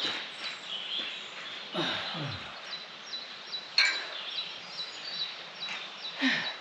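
Small birds chirping in short, quickly repeated notes over outdoor background noise, with two low falling sounds and a sharp click partway through.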